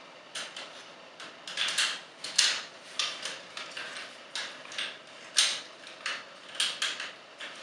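Plastic parts of a Transformers Sixshot action figure being handled and pegged together, giving a string of irregular clicks and clacks as joints and pegs snap into place, the sharpest a little past halfway.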